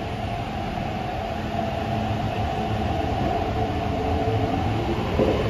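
Hong Kong MTR metro train pulling out of an underground platform and gathering speed, its motors giving a steady whine over the rumble of the wheels, growing louder as the carriages pass. A brief knock sounds near the end.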